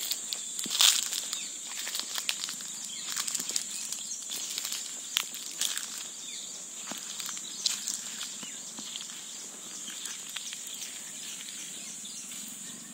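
Dry leaf litter rustling and crackling underfoot in irregular clicks, louder near the start, over a steady high-pitched hiss.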